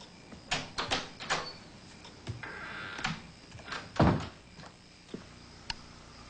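A door being handled: a few quick clicks and knocks, then a heavier thud about four seconds in as it shuts.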